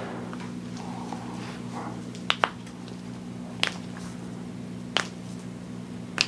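Sharp clicks, a quick double click about two seconds in and then three single ones roughly a second and a half apart, over a steady low hum.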